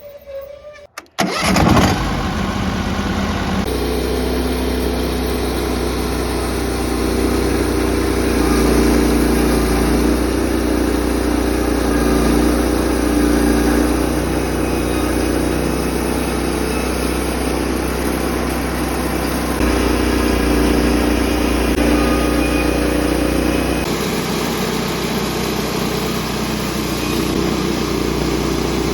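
Sawmill engine starting about a second in, then running steadily, its note shifting slightly a few times.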